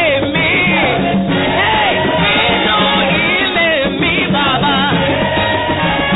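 Church choir singing a gospel song, a lead voice on a microphone over the group, with instrumental backing that has a repeating low bass line.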